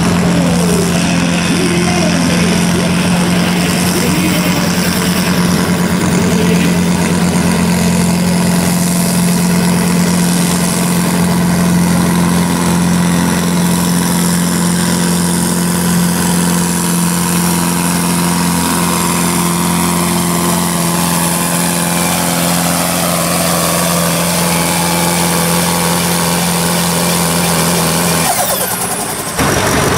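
John Deere diesel tractor pulling a weight sled, its engine running hard at a steady pitch for the whole run and dropping off near the end as the pull finishes.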